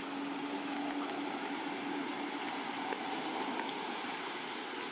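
Steady rushing background noise, an even hiss, with a faint low hum through about the first half.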